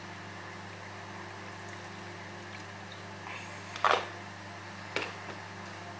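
Steady low hum of running kitchen equipment, with two short knocks of a container or utensil against the pan as white liquid, likely coconut milk, is added to the curry: a loud one about four seconds in and a sharper, quieter one about a second later.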